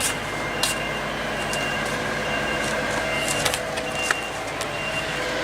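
A heavy work vehicle's engine runs steadily while its reversing beeper sounds over it in a repeating on-off high beep. A few sharp clicks fall in between.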